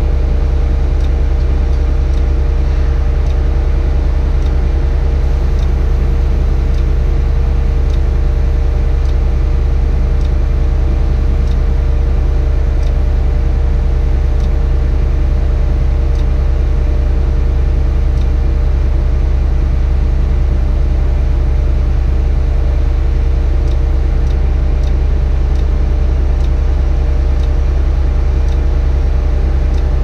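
Tadano 180G-5 crane's engine running steadily, heard from inside the operator's cab: a loud, even low drone with a steady hum on top.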